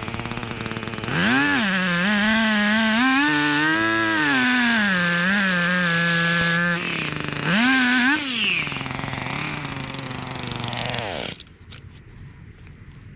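Small engine idling, then revved hard about a second in, its pitch sagging and recovering as it works under load, revved again near eight seconds, then dropping back and cut off abruptly about eleven seconds in.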